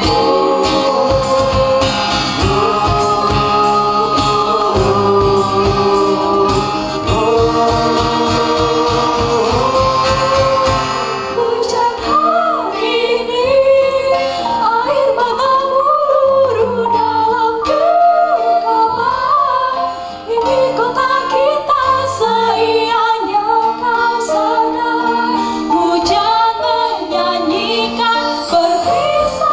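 A small group of voices singing together over a rhythmic accompaniment. The accompaniment drops out about eleven seconds in, leaving the voices singing on their own.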